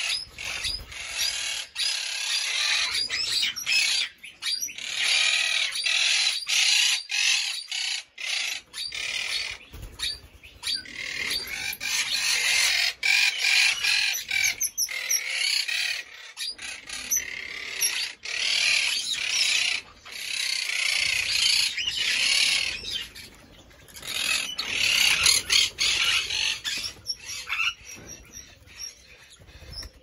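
A flock of parrots and parakeets chirping and chattering, many calls overlapping, with scattered short clicks among them.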